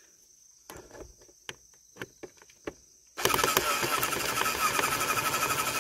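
A few light clicks of parts being handled, then a power drill-driver runs steadily for about three seconds, turning the licence-plate bolt.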